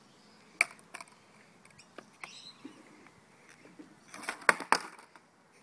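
Skateboard on asphalt: a sharp clack about half a second in, then near the end a quick cluster of loud clacks and clatter as the tail is popped and the board hits the road in a failed ollie.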